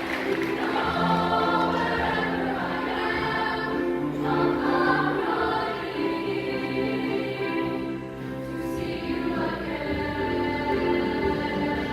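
Junior high school choir singing, voices together holding long notes that change from chord to chord.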